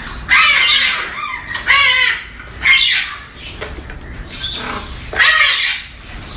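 A bird squawking: four loud, harsh calls, each about half a second long, spread across a few seconds.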